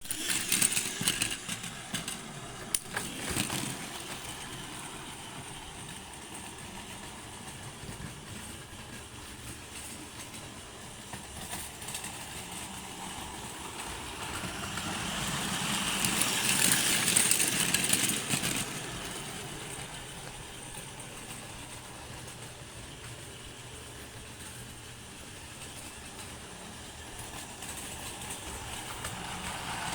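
Hankyu electric train running through a station. Its wheel and running noise builds for a few seconds, is loudest a little past halfway, then fades. A new rise starts near the end.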